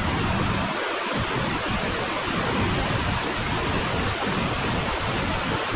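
Steady rushing of falling water from waterfalls and cascades.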